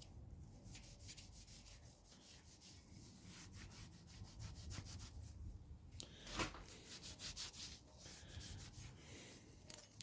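Faint scrubbing: a brush rubbing over the steel blade of an antique cleaver in quick, scratchy strokes, lifting rust loosened by a vinegar soak. A light knock about six seconds in.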